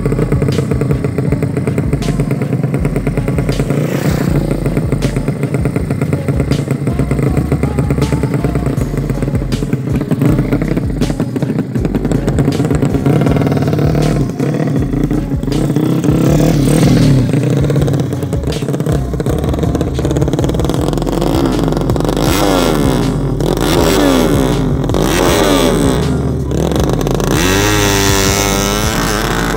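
Motorcycle engines running during a ride, with low wind rumble on the microphone; over the last several seconds the engine pitch repeatedly rises and falls as the throttle is worked.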